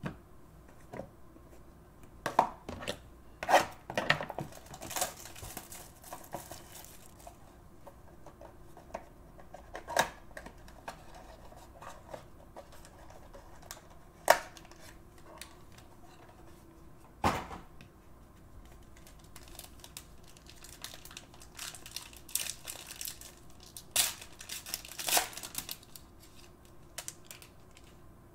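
Stacks of cards being handled, shuffled and set down on a tabletop: scattered sharp taps and clicks, with stretches of card rustling a few seconds in and again near the end.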